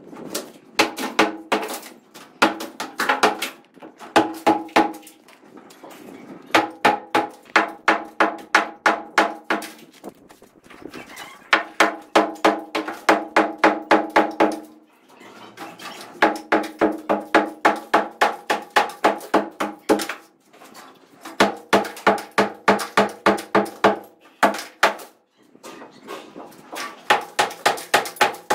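Hand sledgehammer pounding a plastered brick wall in fast runs of blows, about three or four a second, each run lasting a few seconds with short pauses between. A metallic ringing carries through each run of blows.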